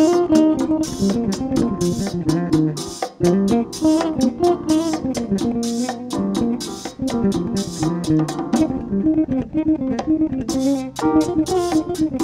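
Electric bass playing a melodic solo line over a cha-cha-cha groove, with hand percussion ticking in quick, even strokes behind it. The percussion drops out for about two seconds past the middle, leaving the bass alone.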